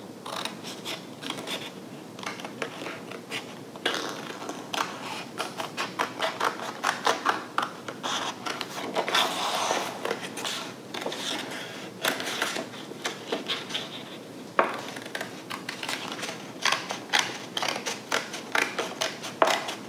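Scissors cutting through a paper sheet: runs of many short snips, with a couple of brief pauses while the paper is turned.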